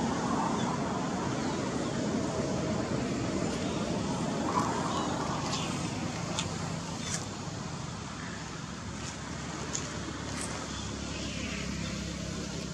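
Steady outdoor background rumble, like distant road traffic, with a few faint short high chirps scattered through it.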